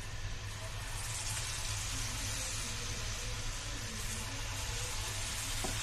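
Hot oil sizzling in a frying pan as spoonfuls of pakora batter are dropped in, the hiss growing fuller about a second in, over a steady low hum.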